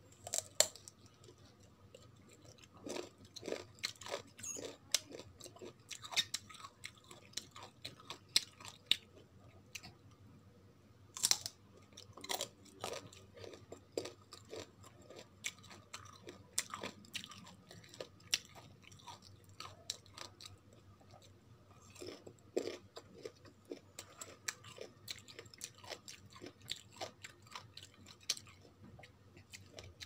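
Crisp bites and crunchy chewing of raw green mango slices, a run of irregular crunches with the sharpest bites about half a second in and again around eleven seconds in.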